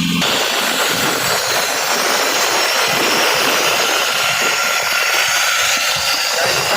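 Compressed-air rock drill on a quarry drilling rig boring into sandstone: a loud, dense hissing, rattling noise. A steady engine hum cuts off abruptly just after the start, and the drilling noise takes over.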